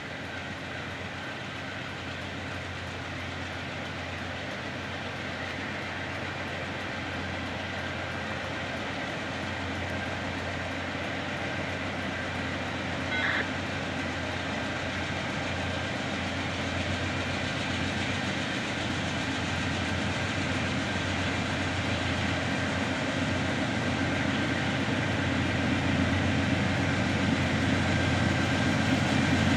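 Norfolk Southern diesel freight locomotive approaching, its engine running steadily along with the rumble of wheels on the rails, growing louder the whole time. A short high tone sounds once near the middle.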